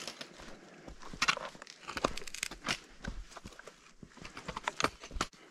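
Footsteps on a rocky trail going downhill, with irregular sharp clicks of trekking pole tips striking stone.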